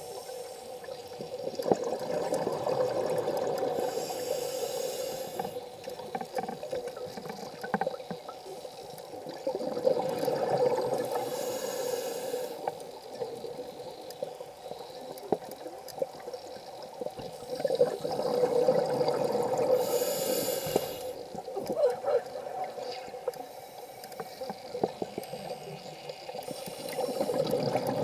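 Scuba diver breathing underwater through a regulator, heard close on the camera. Each breath is a rushing, bubbling spell of a few seconds, coming about every eight seconds.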